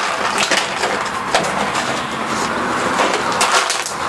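A plastic water bottle crackling and crinkling as a German shepherd mouths and paws at it, the bottle scraping against wooden deck boards. The crackles come in irregular runs, with the densest burst a little before the end.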